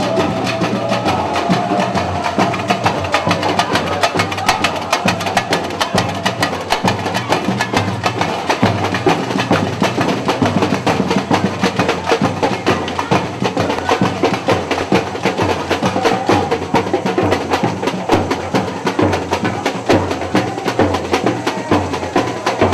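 Samba music driven by fast, dense percussion: a steady stream of sharp drum and wood-block-like strokes over sustained melodic sound.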